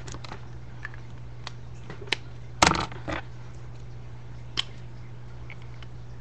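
Scattered light taps and clicks from drawing tools being handled on a desk, with a louder short clatter about two and a half seconds in, over a steady low hum.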